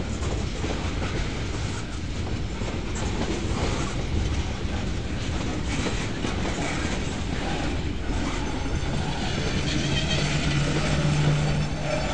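Freight cars of a Norfolk Southern train, tank cars and then boxcars, rolling past close by with a steady rumble of steel wheels on rail and a few faint knocks. About two-thirds of the way through, a low steady hum comes in and grows louder.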